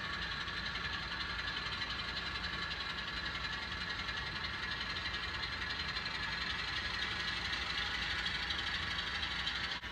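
Simulated diesel locomotive engine sound, a steady running rumble with fixed whining tones above it, accompanying a model train as it runs.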